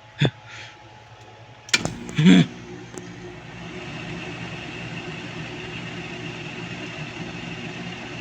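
Air conditioner being switched on: a few clicks, a short louder burst about two seconds in as it starts, then its motor running steadily with a low hum, a higher whine and a rush of air.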